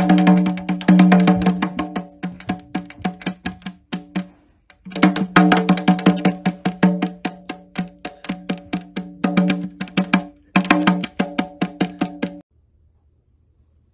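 White domestic duck drumming its bill on a lollipop hand drum in quick taps, several a second, the drumhead ringing with a steady pitched hum. The tapping breaks off briefly twice and stops about 12 seconds in.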